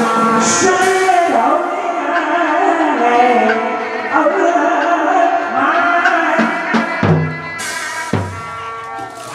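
Hát bội theatre ensemble playing: a wavering melody over drums and percussion, with a few sharp drum strokes after about seven seconds.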